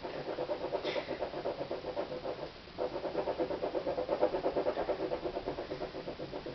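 Rapid back-and-forth scratching on a canvas, scraping through wet oil paint to the dried yellow layer beneath, at about seven strokes a second with a brief pause about two and a half seconds in.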